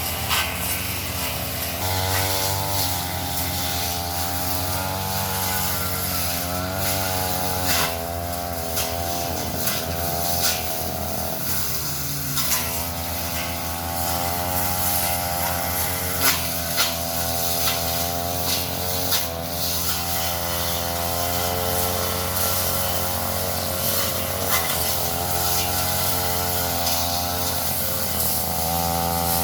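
Brush cutter engine running under load, its pitch wavering up and down as the throttle and cutting load change, with scattered sharp ticks.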